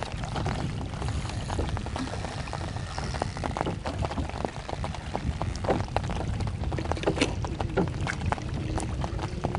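Water splashing and dripping around a small wooden rowboat, in many short irregular ticks, over a steady low wind rumble on the microphone.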